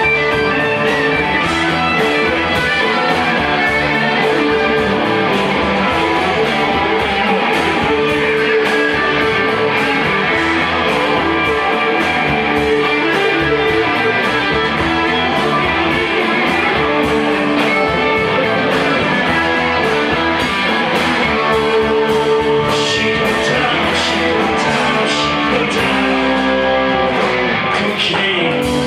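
Live rock band jamming: electric guitars played over bass and drums, with a steady, evenly spaced drum beat throughout.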